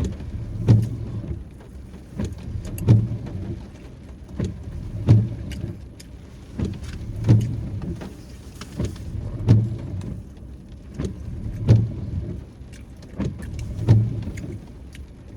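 Windshield wipers sweeping in the rain inside a car, a low thump with a sharp click at the end of each sweep about every two seconds, over the hum of the car.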